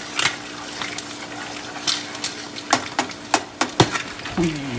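Metal ladle stirring and clinking against a stainless steel saucepan of boiling tomato-chili sauce, with sharp irregular scrapes and knocks. Underneath is a steady sizzle of fish frying in oil in a pan.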